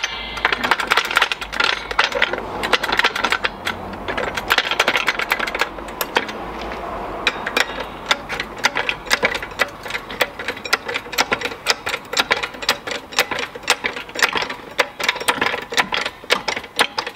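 Hydraulic floor jack being pumped by its handle to raise the front strut and hub up into the strut tower, giving a steady run of quick metallic clicks and rattles.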